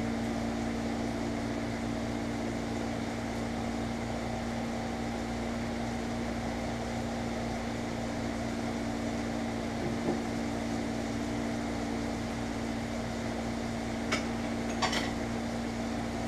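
A steady motor hum, like a kitchen fan or appliance, with two steady tones in it. Near the end come a few short clinks and knocks of dishes being handled at the sink.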